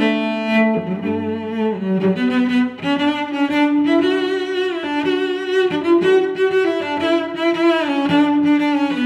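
Background music led by bowed string instruments, playing a melody of held notes that change pitch about once a second.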